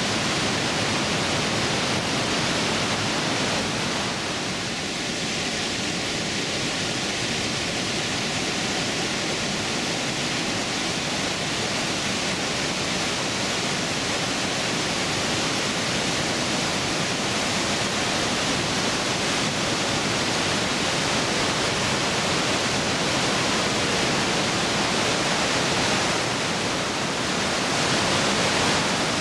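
Glacial meltwater waterfall rushing and crashing down through a narrow rock gorge inside the mountain, a loud, steady roar of water.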